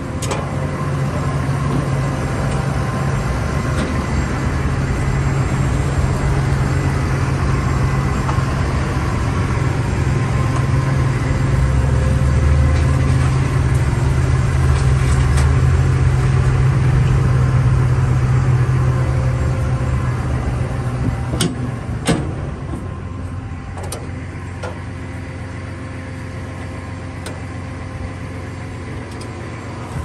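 Diesel engine of a Vögele Super 1800-3i asphalt paver running steadily with a low hum. About two-thirds of the way through, two sharp clicks come and the engine sound drops to a lower level, with a few faint clicks after.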